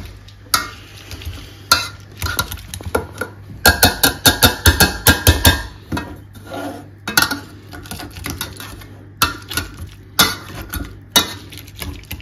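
Wire potato masher crushing blueberries in a stainless steel pot: metal clinking and knocking against the pot, with a fast run of taps, about five a second, in the middle.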